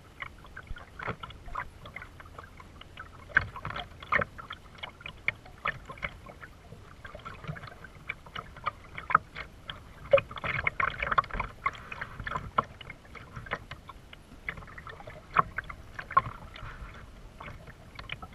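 Kayak paddling on calm water: irregular small splashes and drips as the paddle blades dip in and out.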